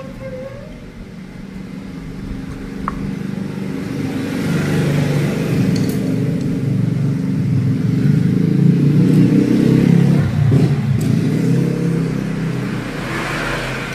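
A motor vehicle's engine passing by: it builds up over several seconds, is loudest about ten seconds in, then fades away.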